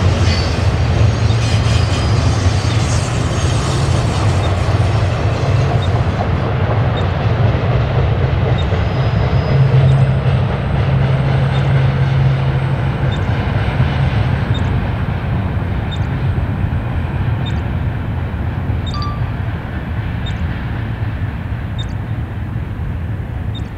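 BNSF double-stack intermodal freight train rolling by on the mainline: a steady rumble of wheels on rail that slowly fades as the last cars pull away, with faint clicks about once a second in the second half.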